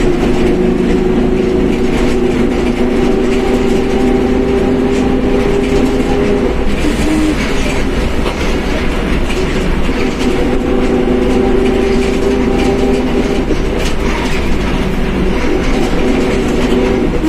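Mercedes-Benz OF1721 BlueTec 5 bus under way, its differential giving a steady whine over a deep engine and road rumble. The whine fades about seven seconds in and returns about ten seconds in.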